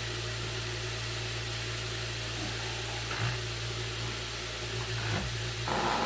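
Vibrating table humming steadily under a mold of wet plaster, shaking the air bubbles up and out so the plaster flows between a mushroom's gills. There are a couple of soft knocks about three and five seconds in, and near the end the hum turns higher and buzzier.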